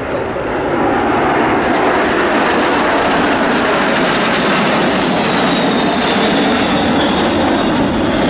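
Seven Aero L-39 Albatros jet trainers flying over in formation. Their turbofan engines make a loud, steady jet rush that swells over the first second, with a faint high whine that slowly falls in pitch as they pass.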